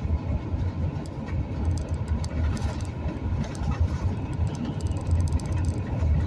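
Steady low rumble of engine and road noise inside a moving vehicle driving along a highway.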